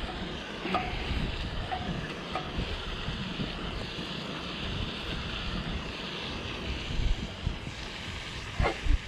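Wind buffeting the microphone over a steady rush of water, with one short thump near the end.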